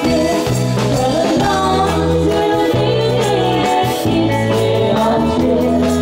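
Live band playing a song: three women singing the melody together over electric bass guitar and a drum kit, with held bass notes changing about once a second.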